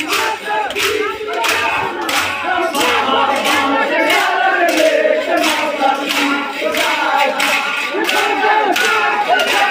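A crowd of men and boys chanting and shouting together in rhythm during Muharram stick-play, over sharp clacks of sticks struck together about twice a second.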